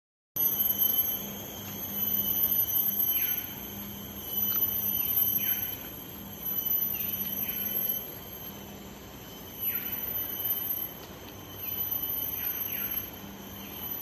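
Rainforest insect chorus: a shrill, high, steady buzz that swells and fades in bouts about every two seconds. Short downward-sliding calls come in over it several times.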